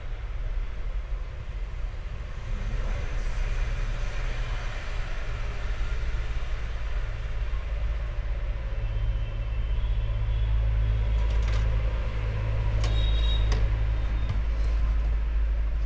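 Steady low rumble, like an engine or traffic running, with a few sharp clicks near the end as the circuit board and wires are handled.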